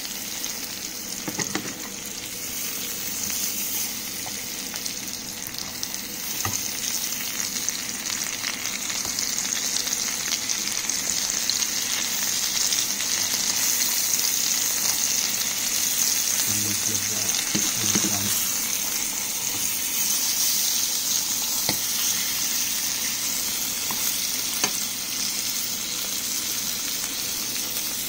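Pieces of chicken frying in hot oil in a skillet: a steady high sizzling hiss with scattered small pops and crackles.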